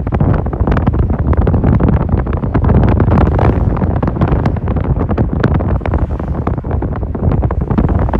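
Amtrak Empire Builder passenger train passing close by at speed. A steady heavy rumble of the cars mixes with rapid, irregular clicking and clatter from the wheels on the rails, and wind buffets the microphone.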